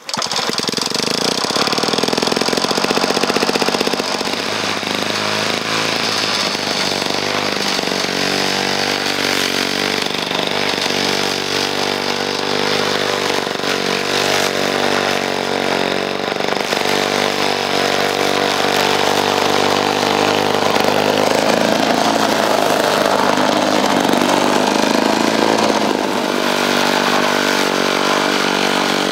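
1955 Sears Craftsman lawnmower's two-stroke 1.5 hp Power Products engine catching on a rope pull and then running steadily while mowing thick, overgrown grass. Its pitch wavers for a few seconds about two-thirds of the way through.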